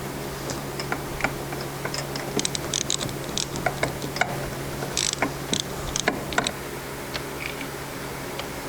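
Irregular metal clicks and clinks of a socket wrench with a swivel and extensions being fitted together and worked on a snowmobile spark plug, over a faint steady low hum.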